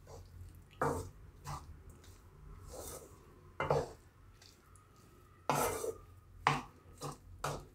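A spatula scraping and stirring a thick gram-flour and onion mixture (zunka) in a nonstick pan, in about eight irregular strokes. It is folding in a fresh tempering of fried garlic and dried red chillies.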